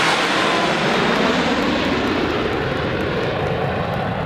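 Jet roar of the Frecce Tricolori formation of Aermacchi MB-339 PAN jets passing overhead. It is loudest and brightest right at the start, then turns duller and lower as the formation moves away.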